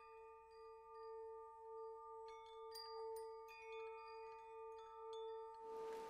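Soft spa-style background music: a held, gently pulsing drone with scattered chime notes ringing over it. A rain-like hiss comes back near the end.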